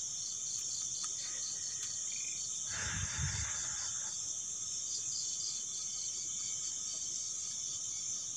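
Insects chirping steadily, a cricket-like chirp repeating about three times a second over a steady high buzz. A brief rustle about three seconds in.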